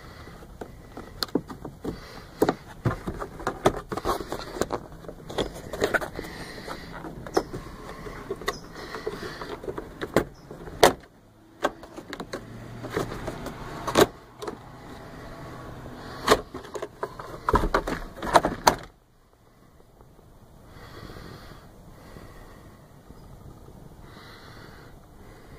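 Irregular sharp clicks, knocks and rattles of tools and parts being handled during hand work on the truck's cab. They stop abruptly about three-quarters of the way through, leaving soft, quieter handling sounds.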